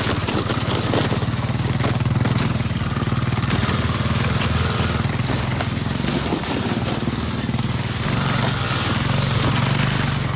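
Suzuki DR200 dirt bike's single-cylinder engine running at a fairly steady pitch with a rushing wind noise, easing off briefly about six seconds in.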